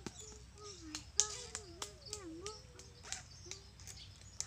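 Short rasping strokes of a hand tool worked along a chainsaw chain's cutters, several at uneven intervals, with bird calls wavering in pitch in the background.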